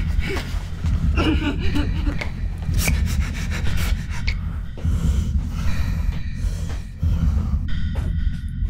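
Rubbing and scuffing noises with breathing, over a steady low rumbling drone.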